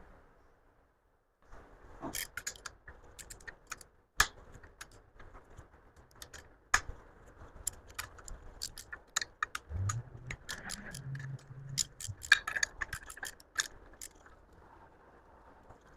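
Ratchet clicking and metal clinks as the cylinder head bolts of a Mazda B2200 engine are broken loose and backed out, with a few sharp metallic knocks.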